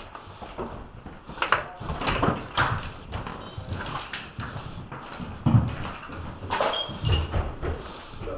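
Irregular knocks, thuds and clatter, with a few short high squeaks about four seconds in and again near the end.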